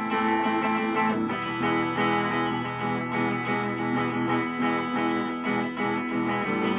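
Electric guitar playing sustained chords in an instrumental intro, the chord changing every second or two.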